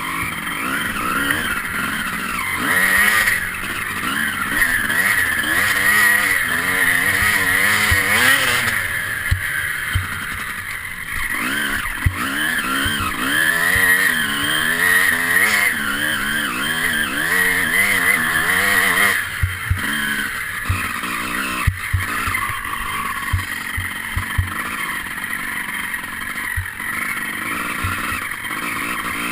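Enduro motorcycle engine heard from on board, its revs rising and falling over and over as it rides through mud, with frequent knocks from the bike over rough ground.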